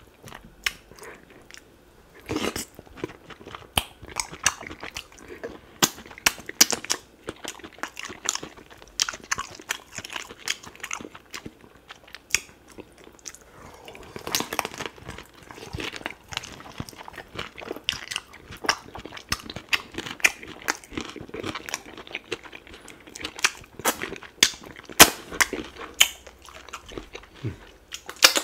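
Close-miked eating sounds of a man eating duck meat in slimy ogbono and okra soup with his fingers: a continuous run of wet chewing, lip smacks and short clicks.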